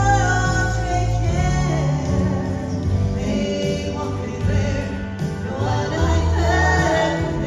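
Three women singing a gospel song in harmony over an instrumental accompaniment with a prominent bass line.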